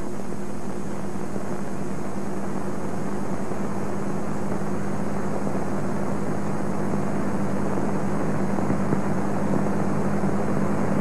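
Steady hiss and low hum of an old film soundtrack, running evenly with no other sound on top.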